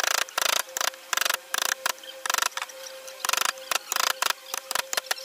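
Claw hammer tapping the wooden handle of a carving gouge as it cuts into the wood: a quick, uneven run of sharp taps, often several in a row, with short pauses between groups.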